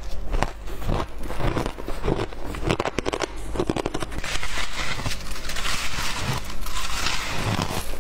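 Close-miked crunching of shaved ice being bitten and chewed, with a dense run of rapid crackles near the middle. Then a longer grainy crunch as gloved hands dig into and squeeze a handful of powdery shaved ice.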